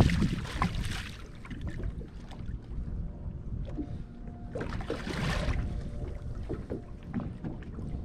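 A paddlefish (spoonbill) thrashing at the surface beside the boat as it is hauled in: two bursts of splashing, about a second each, one at the start and one about four and a half seconds in. Wind rumbles on the microphone throughout.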